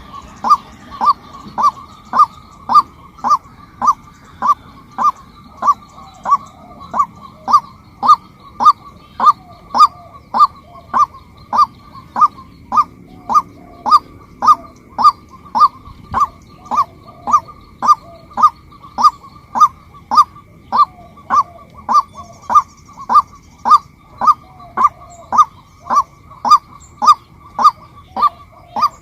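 Female white-breasted waterhen calling a steady, evenly spaced series of short, honking 'kwak' notes, about two a second.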